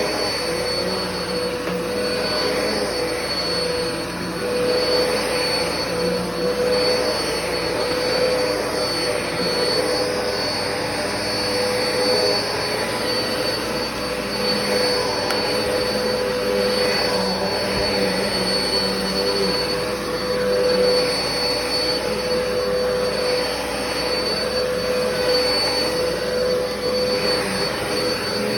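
Black and Decker vacuum cleaner running steadily: a continuous motor whine with a high whistle over a rushing hiss, its level swelling and dipping slightly as it moves.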